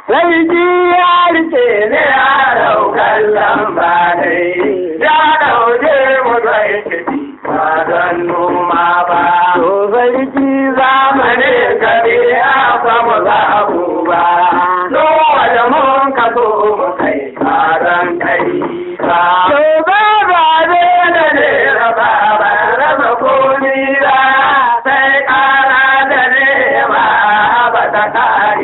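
Traditional Hausa song: a male voice singing in long, chant-like lines that glide up and down, with a few brief breaks between phrases.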